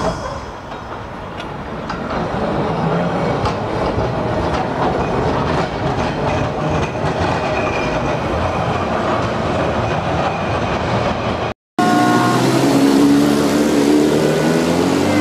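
A Milan Class 1500 tram running past on street rails, a loud rumbling rail clatter that builds over the first few seconds. After a sudden break about twelve seconds in, a road vehicle's engine rises in pitch as it accelerates.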